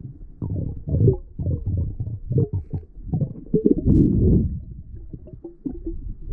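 Muffled, irregular low rumbling and sloshing of water heard underwater as a freediver swims along a lake bottom, with one sharp knock about four seconds in.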